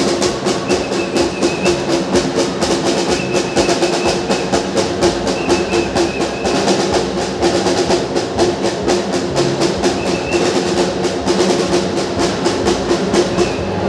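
Music with a fast, steady drumbeat of about four strikes a second under held notes; the beat cuts off near the end.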